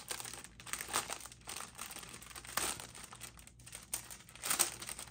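Clear plastic bag crinkling and rustling as hands open it and handle the folded flag inside, in irregular bursts with louder crackles about a second in, midway and near the end.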